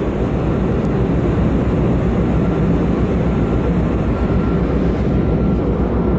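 Steady low rumble of a large cargo ship's engines under way, heard on the open deck, with a faint high tone that comes and goes.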